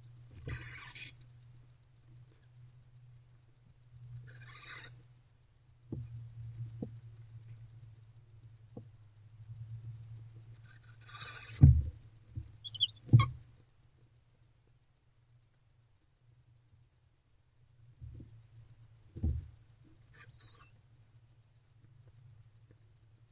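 Barn owl owlets giving short rasping hisses four times, each about half a second to a second long. Between them come sharp knocks and scrapes of the birds moving on the nest box floor, over a low steady hum.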